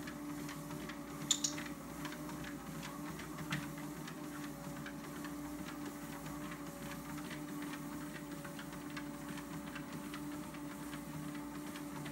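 ProForm treadmill motor humming steadily with the belt running, while a dog's claws tick lightly and unevenly on the moving belt as she walks. One sharp click about a second in.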